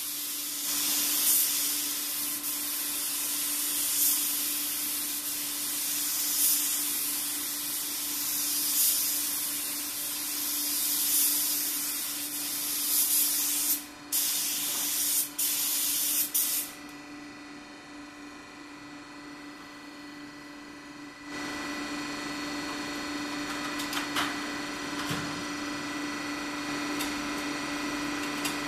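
DeVilbiss GTi Pro air spray gun hissing as it sprays base coat, swelling every couple of seconds with each pass, with a few brief stops as the trigger is released just over halfway in. The spraying then stops, leaving a steady hum, and a louder, rougher machine noise comes in about three-quarters of the way through.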